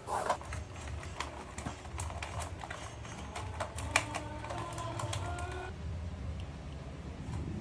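Pleated paper lampshade being folded and handled: crinkling paper and irregular light clicks and taps, with a sharper click about four seconds in.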